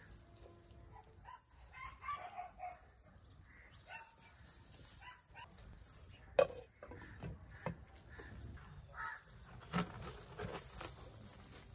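A glass lid clinks down onto a metal cooking pot about six seconds in, with a few lighter knocks later, over scattered short animal calls in the background.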